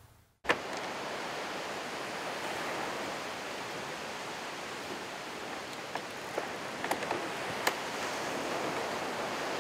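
Steady wash of surf noise from the ocean, starting suddenly half a second in, with a few light clicks near the middle.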